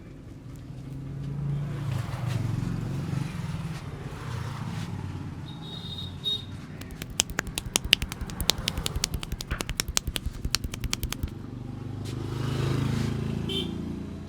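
A fast run of sharp clicking slaps, lasting about four seconds, from a barber's hands tapping and chopping on the head in a percussive Indian head massage. Passing traffic rumbles before and after it.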